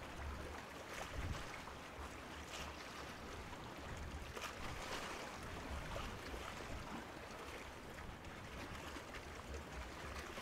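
Faint waterside ambience: a steady low rumble under an even hiss, with light irregular sounds of water lapping.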